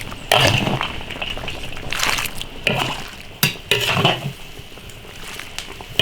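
Lamb and radish stew sloshing in an iron wok as it is scooped out. A utensil scrapes and knocks against the wok in several irregular bursts.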